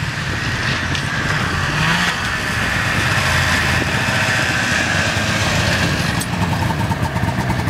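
Ski-Doo Formula snowmobile engine running as the sled rides up and pulls to a stop close by, getting louder over the first couple of seconds and then running steadily.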